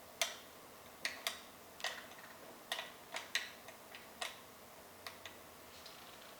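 About a dozen light, irregular clicks and taps from handling a bike stem and a tube of carbon assembly paste, the loudest just after the start.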